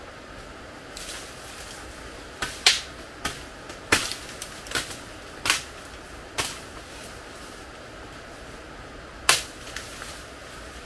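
A series of sharp, irregular cracks and snaps of dry bamboo being bent and broken by hand, about ten in all, over a steady rushing background noise.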